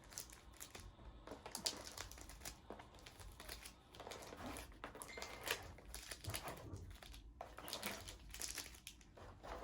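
Foil Pokémon booster packs crinkling and rustling as they are pulled out of a cardboard collection box and handled, in a string of irregular crackles.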